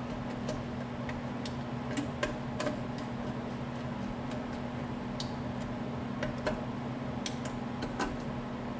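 Irregular light clicks and ticks of small parts being handled and fitted on the back of a metal instrument cluster, over a steady low hum.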